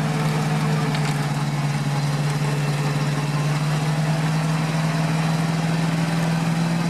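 GAZ-66 truck's V8 petrol engine running steadily, one even drone that holds its pitch throughout.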